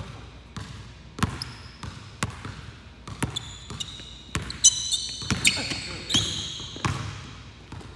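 Basketball dribbled on a hardwood gym floor, bouncing about once a second with an echo, while sneakers squeak sharply on the court in a few spots as the players cut and drive.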